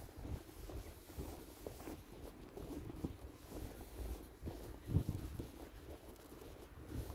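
Footsteps in snow, soft irregular scuffs, with one louder thump about five seconds in.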